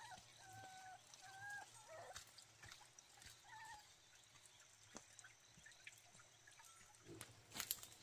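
Chickens clucking faintly, with a few short calls in the first two seconds and another about three and a half seconds in. Near the end there is a brief clatter of light knocks, the loudest sound here.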